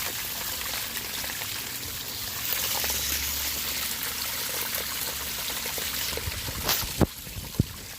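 Small waterfall trickling and splashing steadily, with a few sharp knocks near the end.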